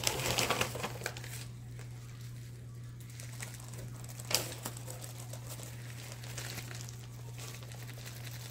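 Plastic packaging crinkling as it is handled, loudest in a burst over the first second, then fainter rustling, with a sharp tap about four seconds in.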